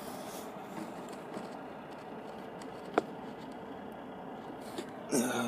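Quiet, steady background noise inside a car, with one sharp click about three seconds in and a short sound from a man's voice near the end.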